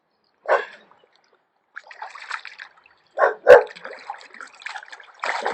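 A large carp thrashing in the angler's hands: wet slaps and splashing of water, with a sharp slap just after three seconds, and short grunt-like exclamations as he struggles to hold the fish.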